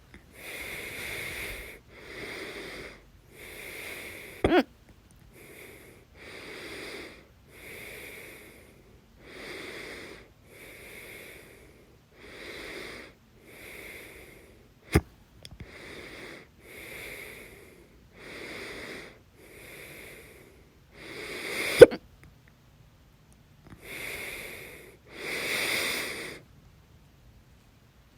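A person with hiccups breathing heavily and wheezily, about one breath every second and a half. Three sudden sharp hiccups break the breathing; the loudest comes about three quarters of the way through.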